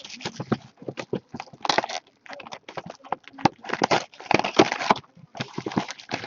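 A box of hockey trading cards being opened by hand: irregular crinkling of packaging and light taps and knocks of cardboard, in quick uneven bursts.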